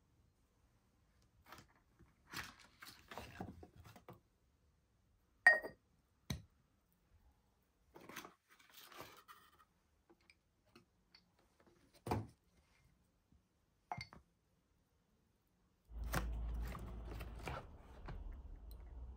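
Household items being handled and set down: scattered light knocks and clinks of ceramic canisters and their wooden lids, the sharpest about five seconds in. Near the end, cardboard packaging rustles and scrapes as a grinder is pulled from its box.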